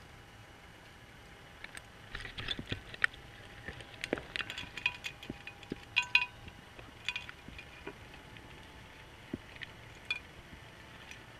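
Irregular sharp clicks and clinks of diving equipment, picked up underwater through a GoPro housing, thickest in the middle few seconds. A faint steady whine runs beneath them and stops about eight seconds in.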